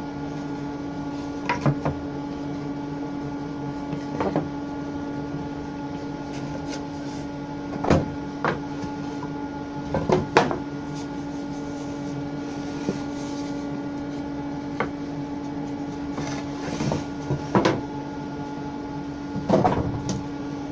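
Planed pine boards knocking and clattering against each other and the saw table as they are picked up and set down, several sharp knocks a few seconds apart, some in quick pairs. Under them runs a steady machine hum.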